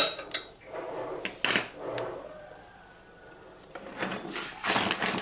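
Metal clinks and knocks as a motorcycle stator coil is worked loose by hand and lifted out of the engine's magneto housing. A few separate clanks come early on, and a denser run of clatter comes near the end.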